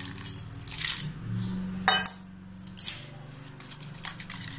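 Water poured into a stainless steel bowl of flour, then a steel spoon clinking and scraping against the bowl as the flour and water are stirred into a lump-free paste, with a sharp clink about two seconds in and another about a second later.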